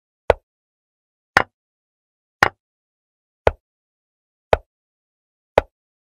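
Chess website's piece-move sound effect: a short, sharp click for each move as the game is replayed, six in all at about one a second. The second and third are doubled clicks.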